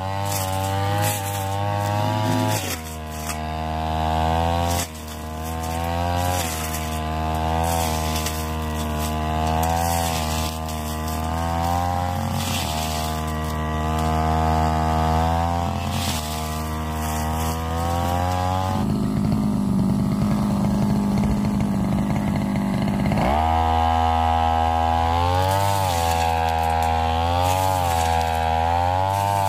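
Ryu backpack brush cutter engine running fast while cutting thick grass, its pitch dipping and recovering again and again as the blade meets the grass. About two-thirds of the way through it drops to a low idle for a few seconds, then revs back up.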